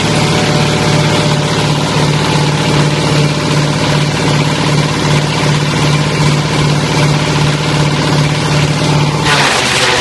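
Wood chipper driven by a single-cylinder diesel engine, running steadily at working speed with its cutting drum spinning. Near the end the steady engine note drops and a harsher rushing noise takes over as branches go into the feed chute and the engine comes under load.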